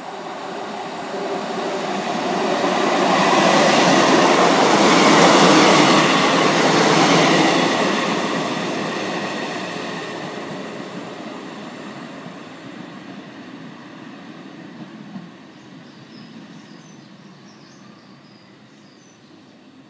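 Two-car diesel multiple unit passing along the line: its engine and wheel noise swell over the first few seconds, are loudest about four to seven seconds in, then fade steadily as the train draws away.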